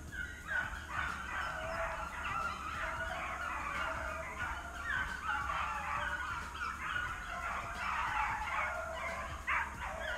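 A pack of hunting dogs baying and yelping on a fresh track, many voices overlapping without a break: the sound of hounds running a swamp rabbit they have just jumped.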